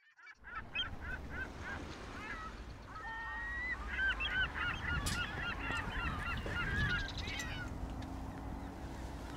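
A flock of geese honking and calling on a tidal estuary: a few spaced calls, then a dense run of overlapping calls from about four seconds in, fading out near the end, over a low steady rumble.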